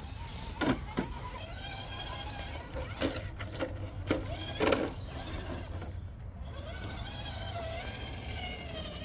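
Electric motor and gear whine of scale RC rock crawlers (Axial SCX10-series) climbing a boulder, the pitch rising and falling with the throttle, with several sharp knocks in the first few seconds as tyres and chassis hit the rock.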